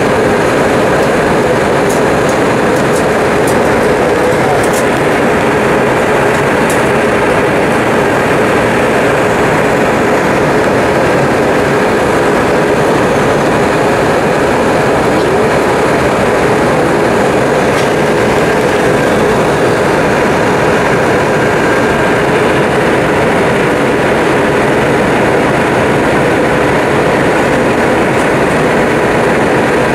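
Steady engine and airflow noise inside the cabin of an Airbus A320-200 airliner in flight, with a faint even hum. A few faint ticks come a few seconds in.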